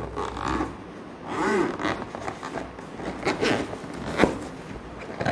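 Zipper on a GoPro camera-accessory bag being unzipped in several short pulls, with the rustle of the bag being handled and a sharp click about four seconds in.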